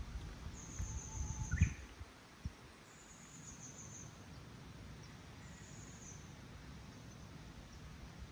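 Quiet outdoor ambience: a faint high trill comes three times, each lasting under a second, with a few low rumbles and a short rising chirp in the first two seconds.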